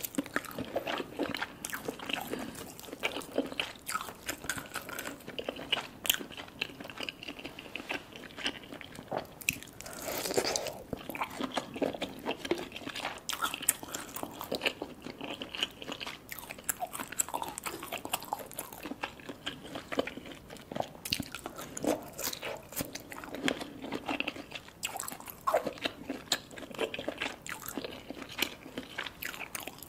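Eating sounds: chewing lobster claw meat and Thai green papaya salad, with many sharp, irregular crunches and crackles, denser for a moment around the middle.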